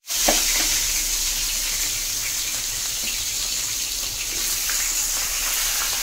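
Chicken pieces sizzling in hot oil in an aluminium wok: a steady high hiss, with a few faint clicks as more pieces are laid in with metal tongs.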